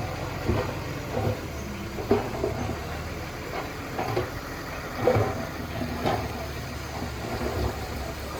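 Diesel engine of heavy earthmoving machinery running steadily, with short, uneven louder surges over it.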